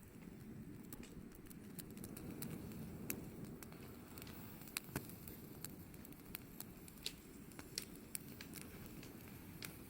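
Wood campfire crackling: irregular sharp snaps and pops, a few louder ones about five seconds in, over a low steady rumble.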